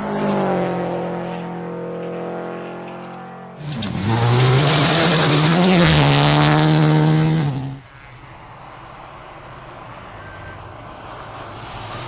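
Rally car engines at speed, in three short edited shots. First a steady engine note. Then, loudest, a car at full throttle with a rising and then falling pitch over a loud rushing noise. It ends with a fainter, more distant engine hum and noise.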